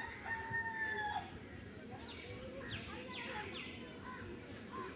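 A rooster crowing, the crow ending about a second in, followed by small birds chirping with a few quick falling notes.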